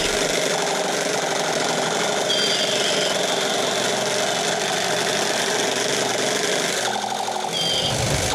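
Battery-powered toy gun rattling rapidly and steadily as it fires, with a short electronic beep near the start and another near the end.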